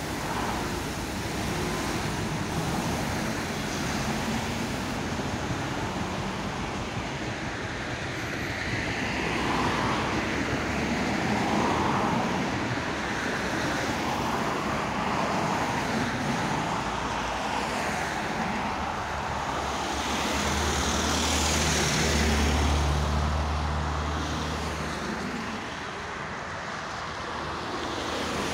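Steady city road traffic, with cars passing close by, while the ER9T electric multiple unit runs past on the line alongside. A deeper, steady hum from a heavier vehicle rises for several seconds about two-thirds of the way through.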